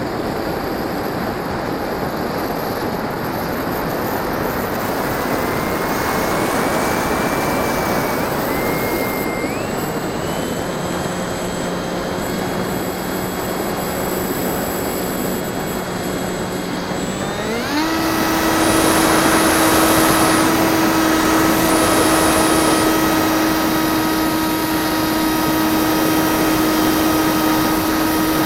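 Bixler 1.1 RC plane's NTM 2200kv brushless electric motor and propeller whining in flight over a steady rush of wind noise. About 17 seconds in the whine jumps sharply higher and louder as the throttle is opened, then holds steady.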